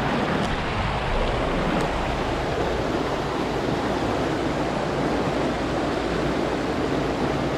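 Shallow mountain river rushing over rocks in riffles and small rapids, a steady noise with no break.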